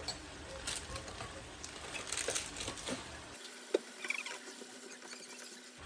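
Light scratchy scraping and tapping of a spoon in a cooking pot as the spice mix goes in, with one sharper tap a little past the middle.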